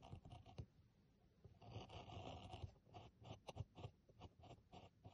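Steel graver cutting fine lines into a wood engraving block: faint, dry scratching. There are two longer scratchy strokes, one at the start and one from about one and a half to two and a half seconds in, then a quick run of short cuts, about five a second.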